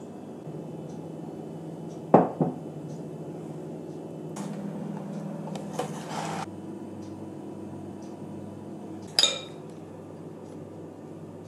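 A spoon clinking and knocking against a metal springform pan and glass mixing bowls as cake batter is spooned in. There are a few sharp clinks, the loudest two close together about two seconds in and a ringing one near the end, over a steady low hum.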